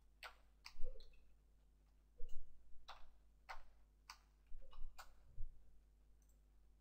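Computer keyboard keystrokes: about ten irregular clicks as a short name is typed, with brief pauses, stopping about a second before the end, over a faint steady hum.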